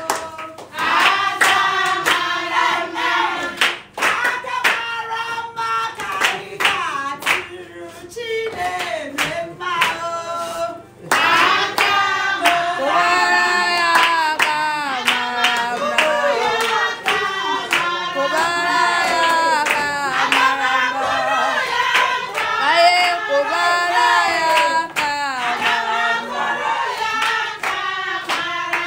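A group of people singing together to steady hand clapping.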